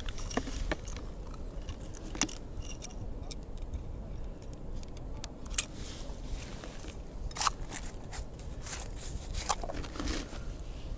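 Scattered small clicks, taps and rattles of hands handling ice-fishing tackle at a hole in the ice, over a steady low rumble of wind on the microphone.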